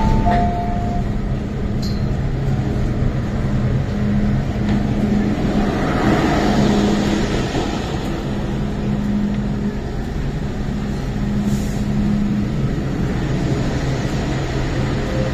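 An MTR M-Train electric multiple unit standing at the platform with its doors open, giving a steady low hum, while passengers walk out past it, their movement loudest about six seconds in. Two short electronic tones sound in the first second.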